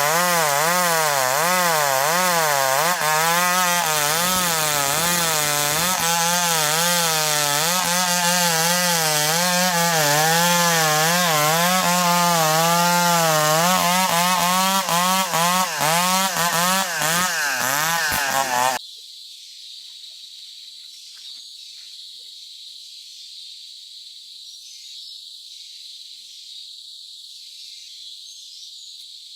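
Chainsaw cutting ulin (Bornean ironwood), its engine pitch wavering up and down as the chain loads and frees in the wood. It cuts off abruptly about two-thirds of the way through, leaving crickets chirping.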